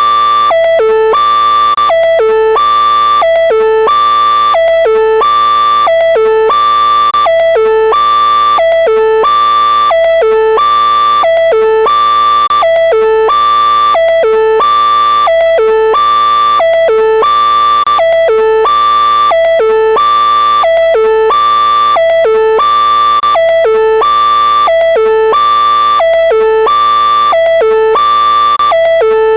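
Vocoder-style synthesized alert tone: a loud three-note electronic figure climbing from low to high, looping evenly about once a second.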